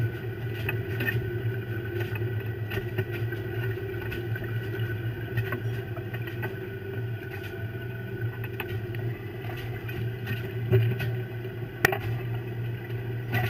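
Fishing boat's engine droning steadily on deck, with scattered light clicks and knocks of snow crabs being handled and sorted, and one sharper knock near the end.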